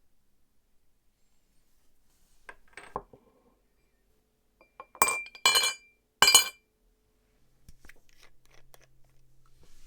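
A few light rattles, then three loud, sharp clinks of hard objects, glass-like with a short bright ring, spaced about half a second apart, followed by soft scattered taps.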